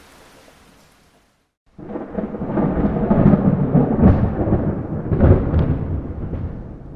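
Rain hiss fading out into a brief silence, then a loud rolling thunderclap that starts suddenly, crackles for a few seconds and slowly dies away.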